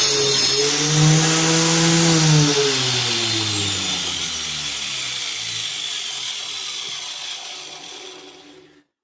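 Angle grinder in a stand running at full speed, then switched off about two seconds in and spinning down, its whine falling slowly in pitch and fading over several seconds until the disc stops near the end.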